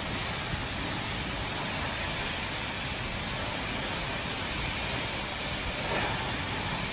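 Steady rushing noise of a heavy rainstorm with strong wind, even and unbroken throughout.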